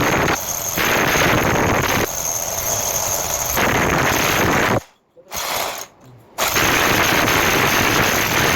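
Hammer drill driving a concrete hole saw bit into a wall, running with a rapid hammering rattle. It stops and restarts twice in quick succession about five seconds in, then runs on.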